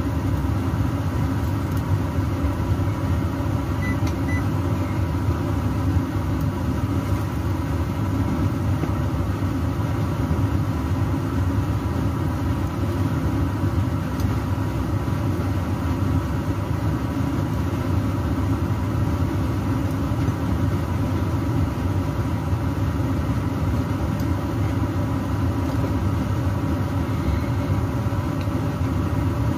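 Kitchen extractor fan running with a steady low hum and rumble.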